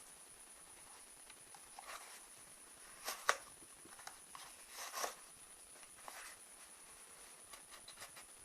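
A taped shipping package being opened and handled: scattered rustles and light knocks, the sharpest about three seconds in.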